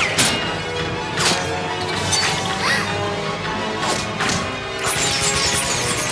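Cartoon fight sound effects: several sharp whooshing swishes and whip-like cracks from a thrown throwing star and whirling nunchucks, over steady background music.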